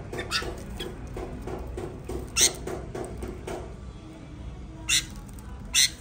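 Small caged birds bathing in a plastic tub of water, wing-fluttering in it in short splashy bursts. Two weak bursts come early, a strong one about two and a half seconds in, and two strong ones near the end.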